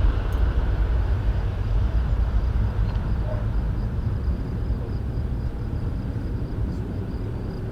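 Boeing 737-800's CFM56 jet engines at takeoff power, a deep steady rumble that slowly fades as the airliner climbs away.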